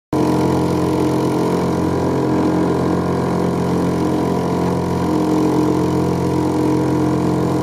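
Small Honda four-stroke outboard motor running at a steady speed, driving the boat along; it starts abruptly just after the beginning, as the picture cuts in, and holds one even pitch throughout.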